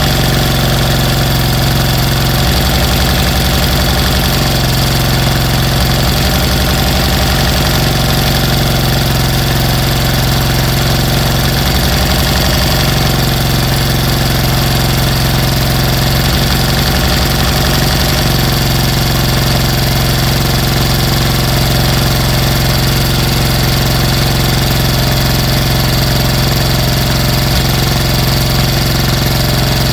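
Briggs & Stratton Intek 23 hp V-twin engine running steadily at a constant speed on its reassembled, damaged internals, with a strong low hum. Stretches of rapid low pulsing come and go a few times.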